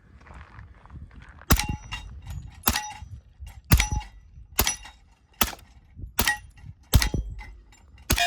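Suppressed HK Mark 23 .45 ACP pistol with an AAC Tyrant titanium suppressor firing about eight shots, roughly one a second, at steel plates. Each shot comes with the short ring of a hit plate.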